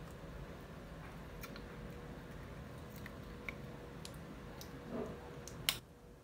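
Small plastic Yakult bottle handled and drunk from: scattered light clicks and taps, a short swallowing sound about five seconds in, then one sharp click.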